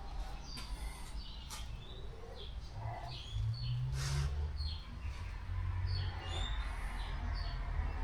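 Small birds chirping, many short high chirps scattered throughout, over a low rumble and a few faint clicks.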